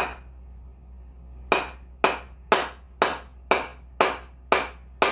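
Homemade wooden mallet striking repeatedly: sharp wooden knocks, one at the start and then a steady run of about two blows a second from about a second and a half in.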